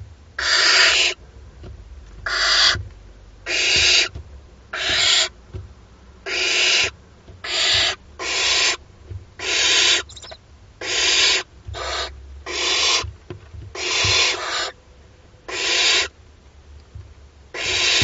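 Barn owl chicks giving their rasping, hissing begging calls, the nestlings' 'snoring' food call. The hisses are drawn out, about half a second each, and come over and over roughly once a second.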